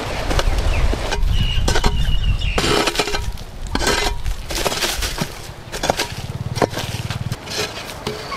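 Long-handled hoe scraping and chopping into dry, dusty soil in repeated irregular strokes, with scuffs and knocks from the blade.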